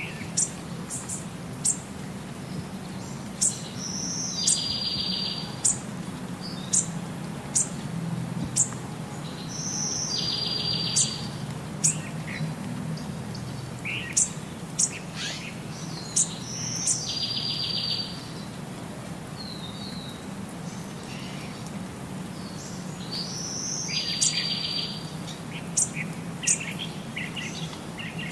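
Small birds chirping: scattered short high chirps, with a short buzzy trill recurring about every six to seven seconds, over a low steady hum.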